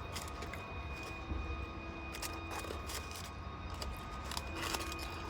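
Chewing on crispy fried food, Popeyes fries, with a few short crunches and crackles, over a steady low hum.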